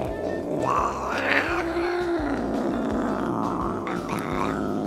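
Domestic cat making a long, low, drawn-out yowl, unusual for this cat, that holds one pitch briefly and then sinks lower.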